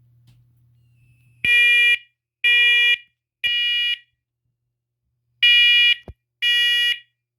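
First Alert SCO500 combination smoke and carbon monoxide alarm sounding its smoke-alarm test in the three-beep temporal pattern: three loud, identical half-second beeps a second apart, a pause of about a second and a half, then the next round of beeps begins.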